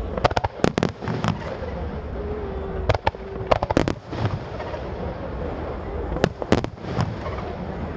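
Aerial fireworks shells bursting overhead: many sharp bangs in three quick flurries, about a second in, near the middle and near the end, over a steady background hum.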